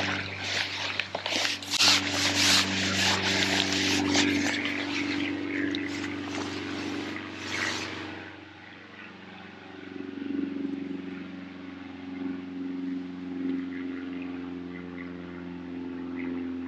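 A fish thrashing and splashing in a landing net at the lake surface as the net is drawn in and lifted out, with water splashing and dripping. The splashing stops suddenly about eight seconds in, leaving a steady low hum underneath.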